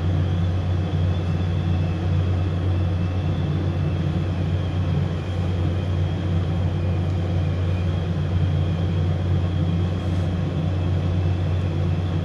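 Steady low mechanical hum of commercial kitchen machinery running without a break.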